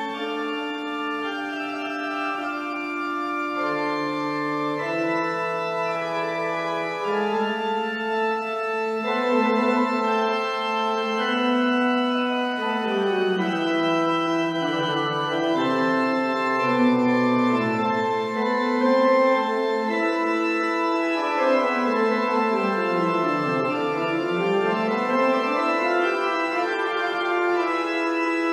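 Nicholson pipe organ playing a voluntary in several sustained contrapuntal lines. A quick run in the lower part falls and climbs back up about three-quarters of the way through.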